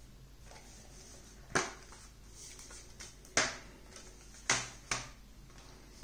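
Metal SteelBook disc case being opened and handled: a few sharp metallic clicks and taps, with light rustling between them.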